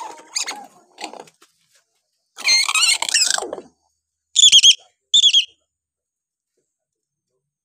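Hill myna calling: a few short calls, then a loud second-long burst of warbling, wavering notes about two and a half seconds in, followed by two short wavering whistles.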